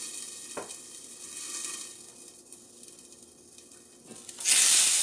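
Dosa batter frying in a covered cast iron skillet, a faint sizzle under the lid with a single click about half a second in. Near the end the lid is lifted, and the sizzling suddenly gets much louder.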